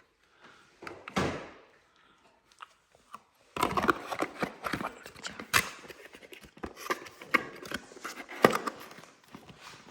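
Cardboard and plastic packaging being handled while a vacuum kit is unboxed. There is a brief swish about a second in, then from about three and a half seconds on a busy run of rustling with irregular clicks and knocks as parts are pulled out and set down.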